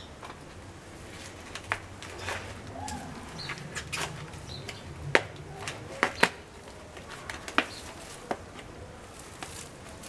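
Scattered sharp clicks and knocks, with some scraping, from hands handling a plant pot and garden soil; the loudest come in a quick cluster around five to six seconds in. Faint bird chirps sit in the background.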